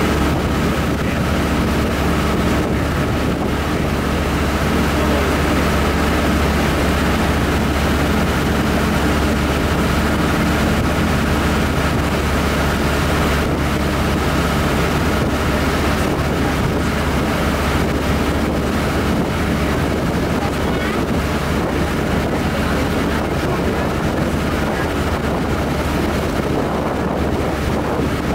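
Small passenger launch's engine running steadily under way, with wind buffeting the microphone and water washing along the hull.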